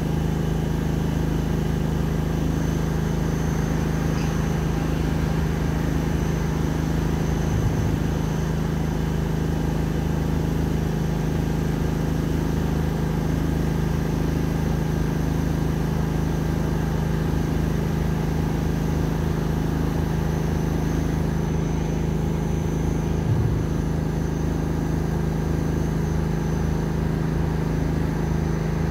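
Steady mechanical hum, low and constant in pitch throughout.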